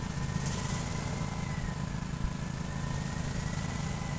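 Small motorized greenhouse boom sprayer running steadily: a low motor hum with a thin high whine that wavers slightly in pitch.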